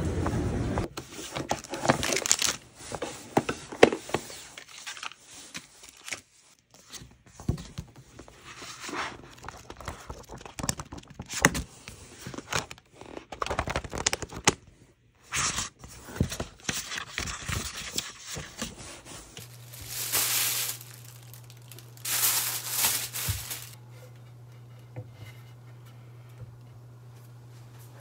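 Pages of a thick paperback book being flipped and turned, a long run of irregular papery rustles and flicks. Near the end a steady low hum takes over, with two brief swishes.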